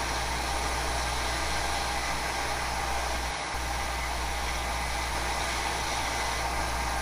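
Narrow belt sander running steadily while a steel knife bolster is held against the belt and ground into a domed curve, with a constant motor hum under the grinding, and a momentary dropout a little past three seconds in.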